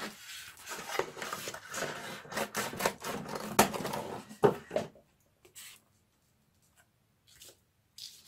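Cardboard box being pulled apart by hand: rubbing and crackling of the cardboard flaps, with a couple of sharp snaps, for about five seconds, then only a few brief faint rustles.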